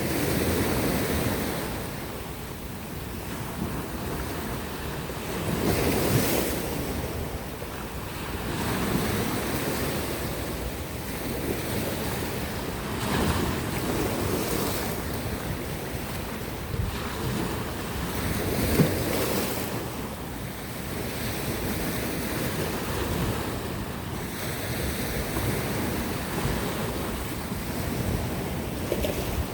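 Sea waves breaking and washing against rocks and shore, swelling and falling every few seconds with one short sharp splash about two-thirds of the way through. Wind blows on the microphone throughout.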